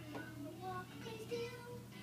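A children's song: a simple melody sung note by note in a high voice over music.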